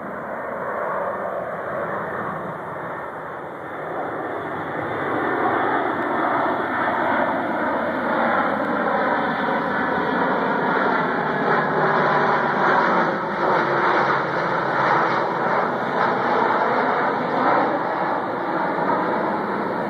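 Lockheed C-130 Hercules four-engine turboprop on landing approach, its engines droning louder over the first few seconds as it comes in low overhead, then staying loud, with tones that slowly slide in pitch.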